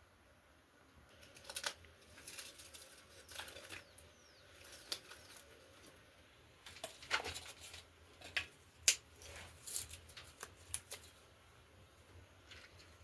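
Irregular snaps, crackles and rustling of dry sticks and kindling while a cooking fire is being lit, starting about a second in.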